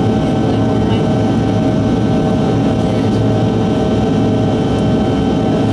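Cabin noise of a Bombardier CRJ-200's rear-mounted GE CF34 turbofan engines during the climb: a loud, even rush with a few steady whining tones above it.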